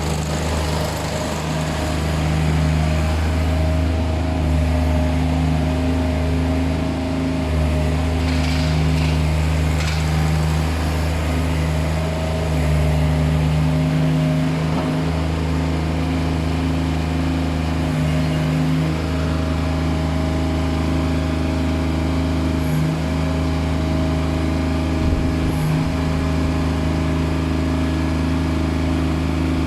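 Crawler bulldozer's diesel engine running steadily.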